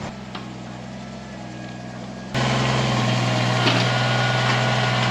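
Tractor engine running steadily, a low even hum that jumps louder a little over two seconds in.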